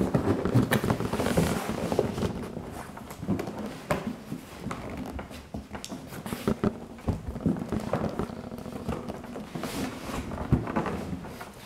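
Hands prying and pulling at the tight-fitting lid of a cardboard laptop box: continuous scraping and rubbing of cardboard, with a few sharp clicks and knocks as the box is gripped and shifted.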